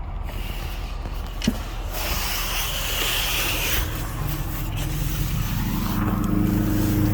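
Car or truck driving, heard from inside: a steady road and engine rumble. The engine note grows louder near the end, with a single click about a second and a half in.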